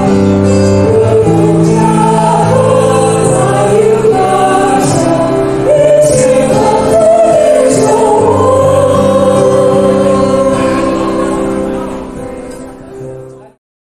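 Electronic keyboard accompanying a group of voices singing a blessing song in long held notes and chords. The music fades out near the end and then cuts off.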